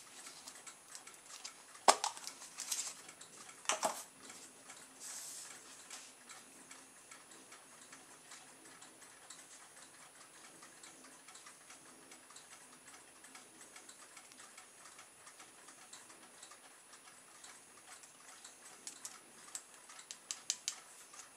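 A plastic baking powder tub's lid is handled and opened with two sharp clicks, about 2 and 4 seconds in. Faint light ticking and tapping follow as powder is spooned with a wooden stick into a small plastic pen tube, with a cluster of small clicks near the end.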